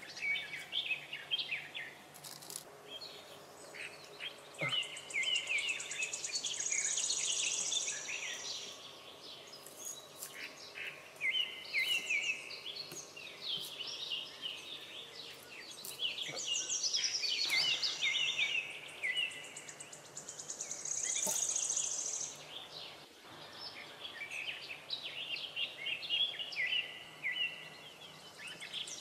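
Songbirds singing in short, bright chirping phrases, some of them fast trills, one after another, with a few faint clicks now and then.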